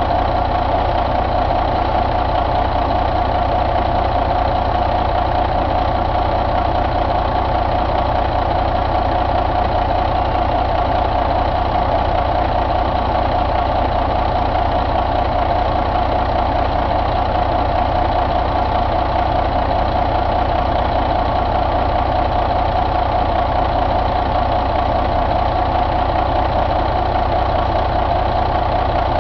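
2006 Caterpillar C13 inline-six diesel engine idling steadily, with no change in speed.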